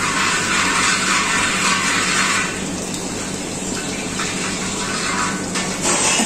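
Mustard oil heating toward its smoking point in a large hammered metal pan, hissing as a steel ladle moves through it. A steady low hum runs underneath. The hiss is loudest in the first couple of seconds and swells again near the end.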